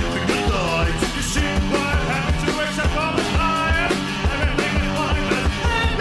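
A rock track playing, with a steady drum beat and a melody over it.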